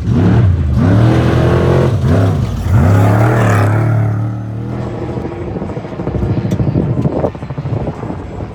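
Off-road race vehicle's engine revving hard as it passes at speed, its pitch rising and falling several times, then fading away. Engine sound swells again briefly near the end.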